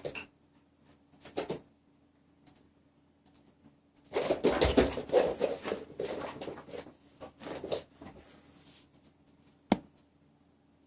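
A small dog's claws scrabbling and clicking on a hard floor, with a busy spell of scratching and pattering in the middle and one sharp click near the end.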